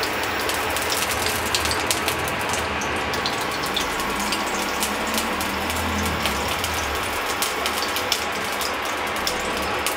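Ghee melting in a hot nonstick pan, sizzling steadily with many fine crackles.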